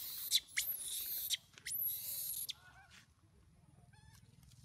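Baby long-tailed macaque screaming in several harsh, high bursts, then giving a few faint, wavering whimpering calls near the end.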